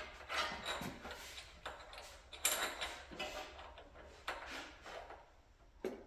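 Scattered light metallic clicks and scrapes of a spark plug socket and extension on a Predator 212cc engine as a new spark plug is worked into its hole, the threads hard to get started.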